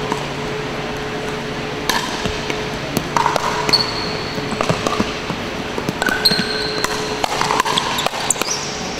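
Pickleball paddles knocking a hollow plastic ball back and forth in a rally, a series of sharp hits at uneven spacing, with short high squeaks of sneakers on the hardwood court between them.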